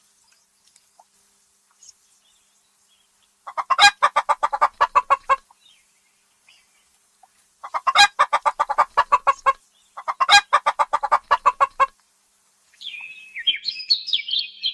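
Chicken clucking in three quick rattling bouts of rapid clucks, each about two seconds long. Near the end comes a higher chirping call.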